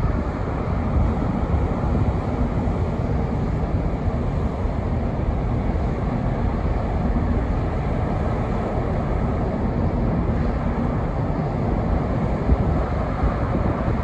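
Ro-ro passenger ferry Ben-my-Chree passing close by under way: a steady low rumble of the ship's engines and moving water, with some wind on the microphone.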